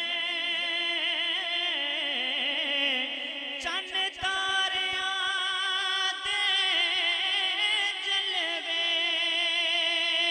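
A man singing a Punjabi naat into a microphone through a public-address system, drawing out long wavering notes without clear words, with a brief break about four seconds in.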